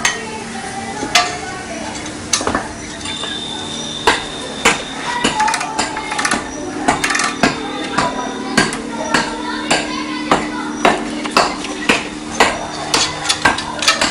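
Repeated sharp knocks, a few at first and then about two a second from about four seconds in, as a large ceramic floor tile is tapped down into its bed of cement mortar.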